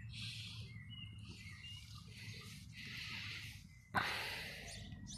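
Leaves and branches of a garden shrub rustling in several short bursts, with birds chirping in the background. About four seconds in comes a sudden louder rustle or knock that fades away.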